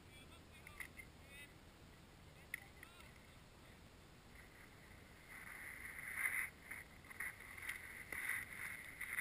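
Skis, boots and ski poles scraping and crunching in snow right beside a GoPro lying in the snow, muffled by the camera's waterproof housing. It is faint at first and grows louder and more uneven from about five seconds in, as the skier reaches the camera.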